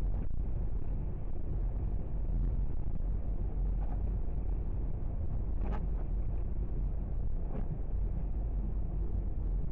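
Car driving, heard from inside the cabin: a steady low rumble of engine and road noise, with a couple of faint clicks partway through.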